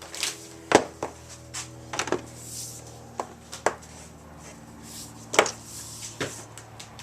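Irregular sharp knocks and clacks, about half a dozen, from things being handled and set down on a hard work surface while an extension cord is worked on. A faint steady hum runs underneath.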